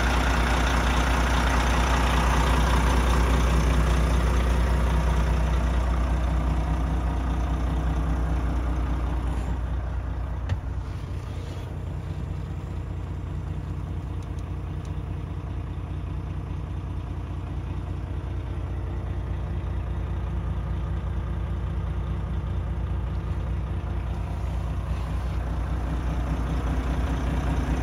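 Volvo FM410 truck's 13-litre six-cylinder diesel idling steadily, first heard beside the cab, then more muffled from inside the cab from about ten seconds in, and louder again near the end. A single knock sounds about ten seconds in.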